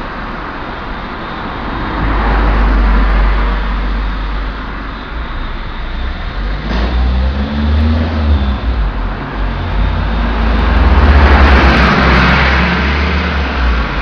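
Road traffic on a busy main road: cars passing close by, their noise swelling about two seconds in and again near the end, over a deep steady rumble.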